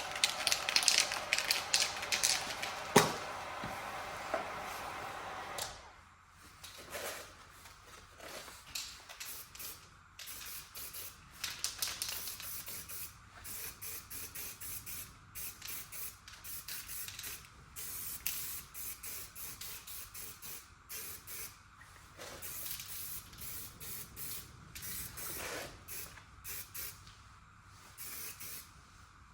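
Aerosol primer being sprayed onto an aluminium panel in many short, separate bursts of hiss. For about the first six seconds a steady blowing hiss with a hum runs instead, then stops.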